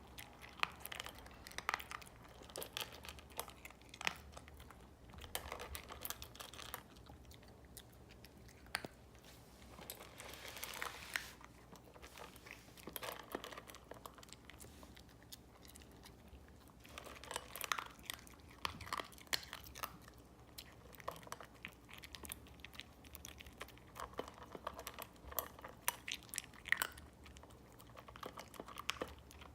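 A dog eating its food, chewing with irregular crunches that come in clusters separated by short pauses.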